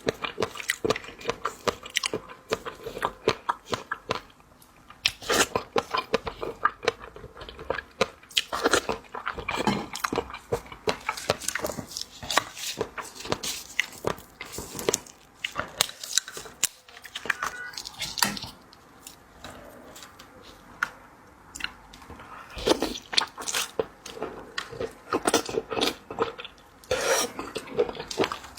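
A person chewing and biting into seafood, with crisp crunching and crackling in bursts and short quieter pauses between mouthfuls.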